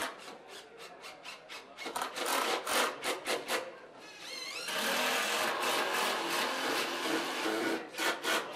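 Cordless screw guns driving screws into wooden deck posts and rails: a run of sharp knocks, then a motor spins up with a rising whine about four seconds in and runs steadily for about three seconds as a screw goes in, followed by a few more knocks near the end.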